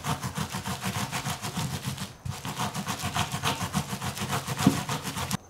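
A stiff wire brush scrubbed rapidly back and forth over the base of a turkey tail fan, scraping meat and gunk off the feather quills. There is a brief pause about two seconds in, and the brushing stops just before the end.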